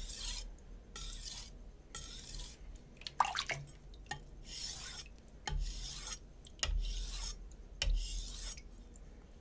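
Shun Classic chef knife being stroked across a wet Naniwa Super Stone 400 whetstone: about eight short raspy scraping strokes, each under a second, some starting with a light click of the blade. This is a coarse 400-grit sharpening pass, four strokes to a side.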